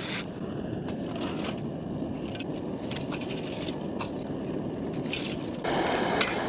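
Snow being scraped and scooped up in short, irregular strokes, over the steady running of a multi-fuel camp stove burning gasoline.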